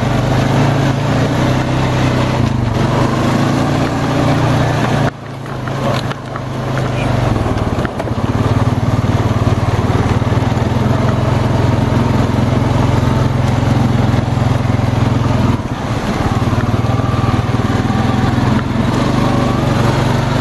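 Honda Rancher ATV's single-cylinder engine running steadily as it drives along the trail. About five seconds in the engine note drops away, then builds back up over the next few seconds.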